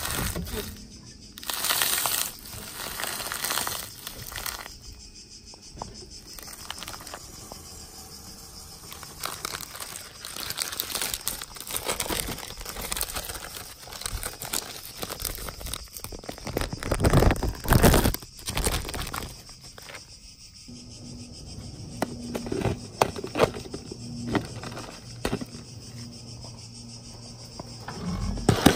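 Plastic Cheetos snack bag crinkling and rustling as hands open it and rummage through the crushed contents, with louder tearing crackles partway through.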